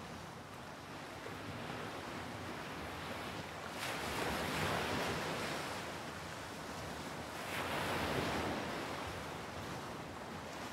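Ocean surf washing in, a steady rushing noise that swells louder twice, about four and eight seconds in, as waves break.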